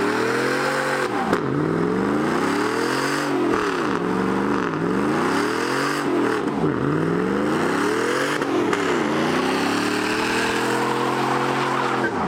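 Chevrolet Silverado pickup's engine revved hard during a burnout, its pitch swooping up and down about five times, then held high for a few seconds before dropping off near the end, over the hiss of the spinning, smoking rear tires.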